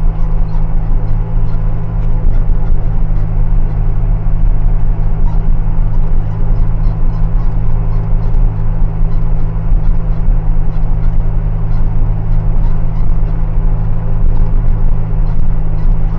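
Engine running steadily, a loud, even low drone.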